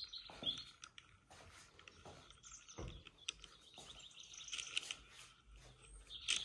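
Songbirds chirping and singing, with scattered soft clicks and a dull thump about three seconds in.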